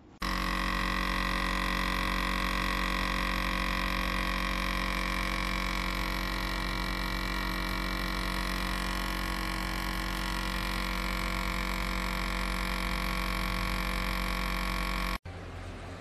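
Nespresso Inissia capsule machine's vibration pump buzzing steadily while it brews coffee into a cup. The buzz cuts off suddenly about a second before the end.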